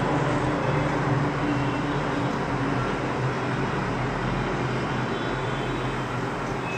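Steady rushing background noise with a low hum, even in level throughout.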